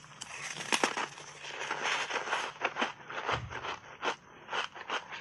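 Close-miked biting and chewing of a frozen foam ice bar coated in milk powder: dense, irregular crunching and crackling, loudest just under a second in, then going on as separate crunches.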